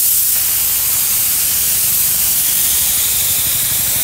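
Air-atomizing spray gun hissing steadily as it sprays stainless-steel pickling and passivating liquid onto weld seams, with atomizing air at about 80 PSI.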